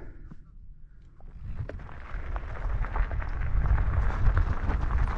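Mountain bike moving over a rough, stony track: tyres crunching on stones with many small knocks and rattles under a low rumble, building up about a second and a half in.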